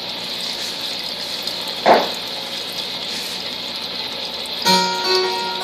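Steady hiss with a brief knock about two seconds in; near the end an acoustic guitar starts playing, picking out single notes.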